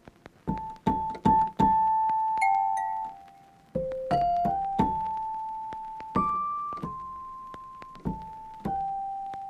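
Background music: a slow keyboard melody of single piano-like notes, each struck and left to fade, a few quick notes at first and then longer held ones.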